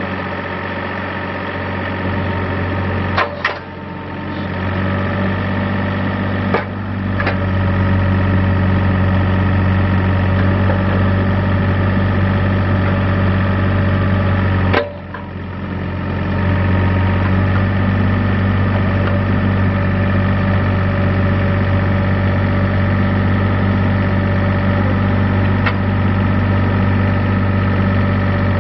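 2006 John Deere 27C ZTS mini excavator's diesel engine running steadily while the boom and bucket are worked, the engine note building up under hydraulic load. A few sharp knocks come through, about 3, 7, 15 and 26 seconds in; after the first and third the sound briefly drops before the engine builds back up.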